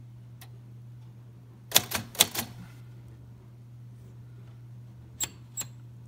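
Keys of a 1953 Royal Quiet De Luxe manual portable typewriter being struck, each type bar hitting the platen: a quick cluster of strikes about two seconds in, then two lighter clicks near the end.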